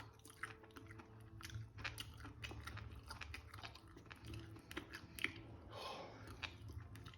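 A person biting and chewing a sauce-drenched chicken wing close to the microphone: many small wet clicks and smacks, faint, over a steady low hum.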